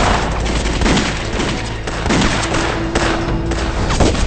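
Gunfire from rifles and pistols in a film battle, many shots in quick succession, with background music under it.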